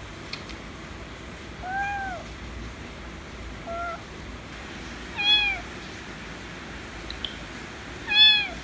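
Kitten meowing four times at a steady pace, each call rising and falling in pitch. The second call is short and quieter, and the last two are the loudest.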